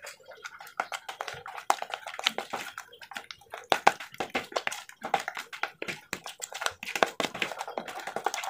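A wet, creamy bait mix being kneaded and mixed by hand in a plastic bowl: irregular squelching and scraping of fingers and dough against the plastic, with many small quick clicks.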